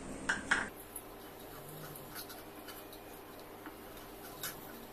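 Steel spoon clinking and scraping against a stainless-steel kadhai while stirring a thick masala paste: two clinks near the start, then faint scattered ticks.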